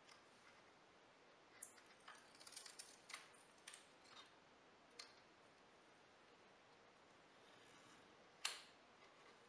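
Faint handling sounds of a self-adhesive measuring-tape scale being peeled and pressed onto a plywood fence: light rustles and small clicks, with one sharper click near the end.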